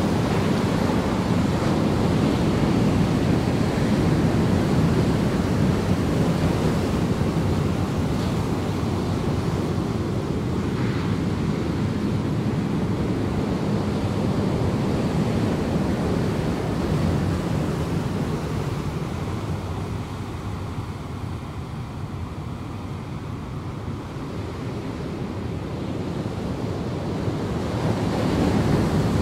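Heavy ocean waves breaking in a steady, low rumble of surf, easing about two-thirds of the way through and building again near the end, with wind buffeting the microphone.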